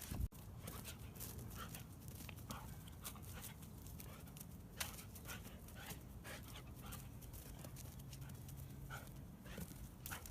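A dog heard faintly, with soft panting and scattered light clicks and taps.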